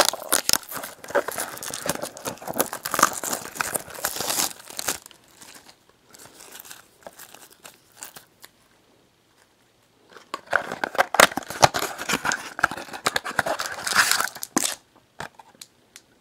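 Plastic wrapping of a trading-card pack being torn open and crumpled by hand. It comes in two bouts of crinkling, the first for about five seconds and the second starting around ten seconds in, with a quiet gap between.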